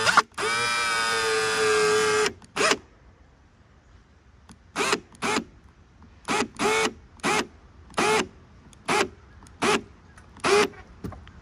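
Cordless drill driving a long screw with a wide washer into foam insulation board. The motor runs steadily for about two seconds, stopping and restarting just after the start. Then comes one short pulse, and from about halfway on nine short trigger pulses seat the screw, each rising and falling in pitch.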